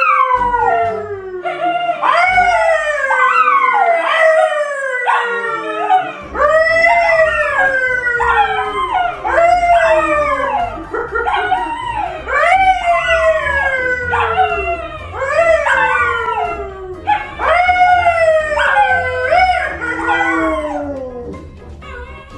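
An animal howling over and over in long calls, roughly one a second. Each call jumps up in pitch and slides down, and the calls die away near the end.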